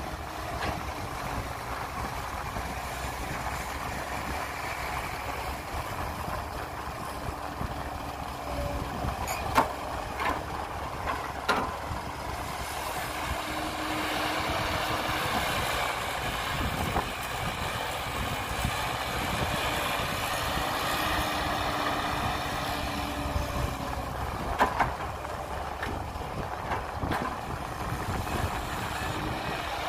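Heavy construction-machinery diesel engine running steadily, with a few sharp knocks about ten seconds in and again near twenty-five seconds.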